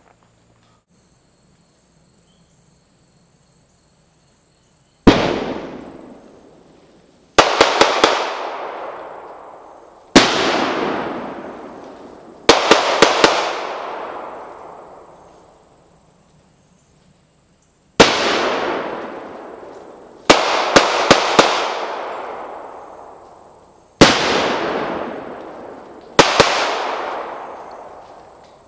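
Pyrotechnic IED simulators going off close by: about eight sharp, loud bangs starting about five seconds in, some single and some in quick runs of three or four cracks, each trailing off over a second or two.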